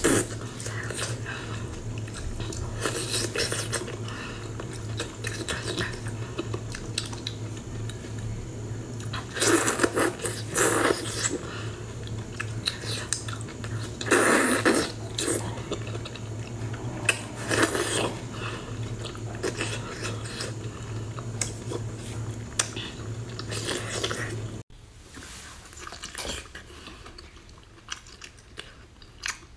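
Close-up eating sounds of a person biting and chewing a whole cooked octopus: wet mouth sounds and short sharp bites, with louder bouts about ten, fourteen and eighteen seconds in. A steady low hum runs underneath until an abrupt cut near the end, after which the eating is quieter.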